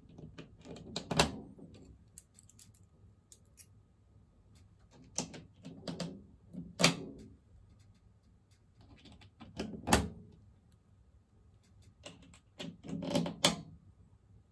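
Sharp clicks and knocks of a wire mesh panel's metal frame being handled in 3D-printed plastic wall mounts, with a light metallic rattle: about half a dozen separate knocks, two close together near the end.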